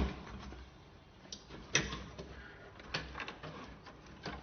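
Scattered clicks and knocks of a mechanical hard drive being taken out of a desktop computer case by hand, over a low steady hum.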